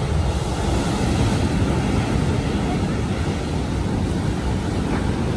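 Large ocean waves breaking and washing up a sandy beach: a steady, even rush of surf.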